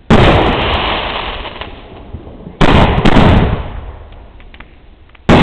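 Fireworks exploding: three loud booms about two and a half seconds apart, each dying away slowly in a long rumbling echo, with a few faint crackles between the second and third.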